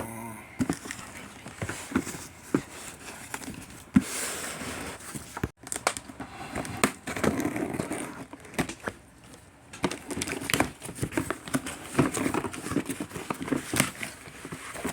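Hands handling a 5G home-internet gateway and its cardboard and plastic packaging: scattered knocks and clicks with crinkling in between.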